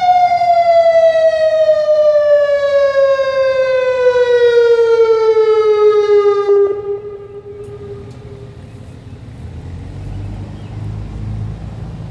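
Federal Signal Modulator outdoor warning siren winding down at the end of its test, one pitch falling steadily, fading out about seven seconds in. A low rumble follows.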